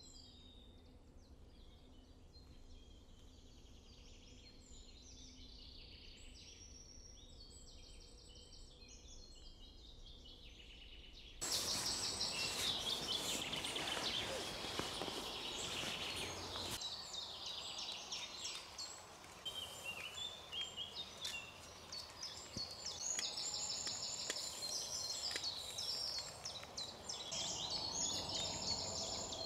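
Songbirds chirping and trilling in woodland, many short calls overlapping. About eleven seconds in, the sound jumps abruptly louder: a broad rushing noise comes in under denser birdsong.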